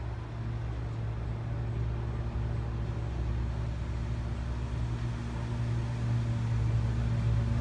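Steady low mechanical hum of a running motor or engine.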